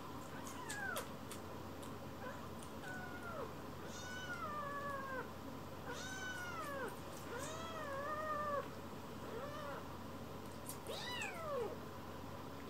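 Kitten mewing repeatedly: a string of high, arching mews, some short and some drawn out for about a second, with brief gaps between them.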